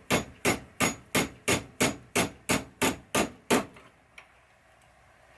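Hammer tapping a pin punch in a quick, even series of about eleven metallic strikes, around three a second, driving a roll pin into a pinball flipper link. The strikes stop a little over halfway through.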